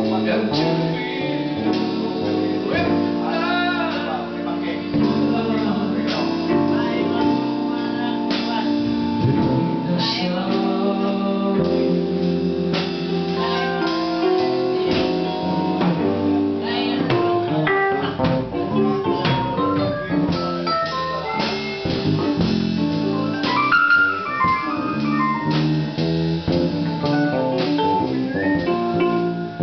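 Live band jamming: piano and electric bass guitar, with a plucked guitar, playing a loose jazzy groove.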